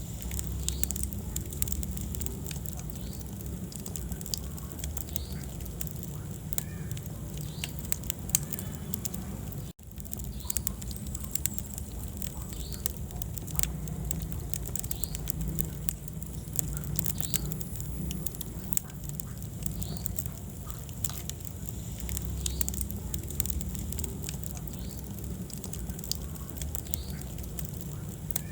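Wood fire burning in a fireplace: a steady low rumble of flames with frequent, irregular crackles and pops. The sound cuts out for an instant about ten seconds in.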